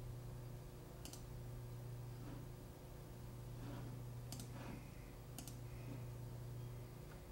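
Faint computer mouse clicks: one about a second in and two more a second apart around four and a half and five and a half seconds, over a steady low electrical hum.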